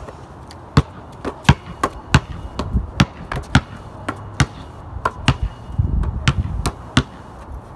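Basketball bouncing on a concrete driveway, dribbled unevenly: sharp bounces at an irregular pace of roughly two a second.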